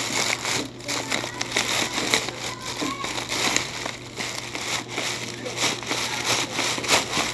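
Thin plastic bag rustling and crinkling continuously as hands rummage through groceries packed inside it.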